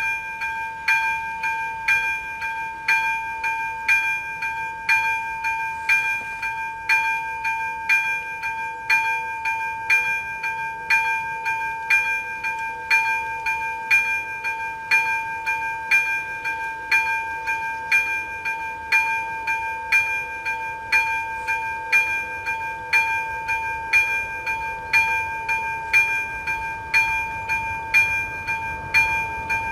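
Second-generation electronic bell of a Czech AŽD71 level-crossing warning signal ringing, an evenly repeating electronic strike over a steady tone, the warning that the crossing is closed for an approaching train. A low rumble grows near the end as the train approaches.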